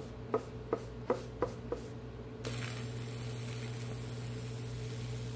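A few sharp clicks, about three a second, then about two and a half seconds in a high-voltage Lichtenberg wood-burning rig switches on: a steady electrical hum with hiss as the current burns and arcs through the wooden board.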